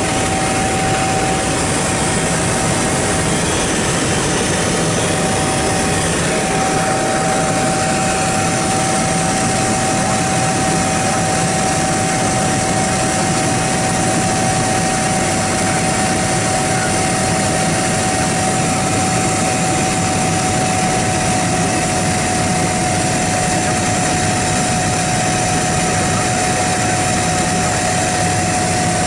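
Helicopter in flight heard from inside the cabin: a loud, steady engine and rotor noise with a constant whine running through it.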